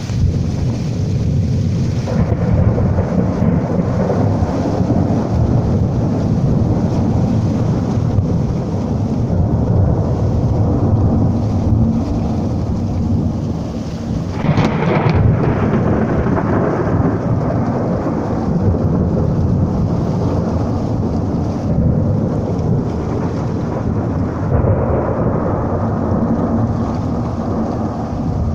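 Thunder rumbling continuously in a thunderstorm, with rain falling. About halfway through comes a sharper, brighter clap of thunder.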